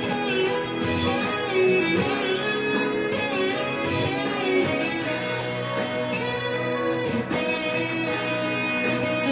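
Ibanez electric guitar playing a melodic line of sustained picked notes, some gliding up and down in pitch.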